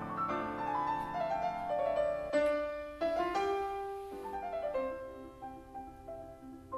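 Piano music on the soundtrack: slow, sustained notes and chords that change about once a second and fade out.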